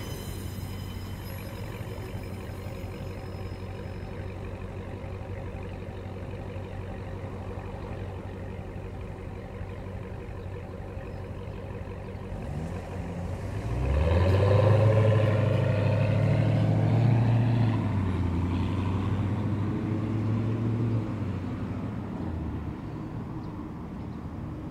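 Dodge Charger SRT's V8 exhaust idling with a steady low burble, then getting much louder with the engine note rising as the car accelerates away, about halfway through, before fading away.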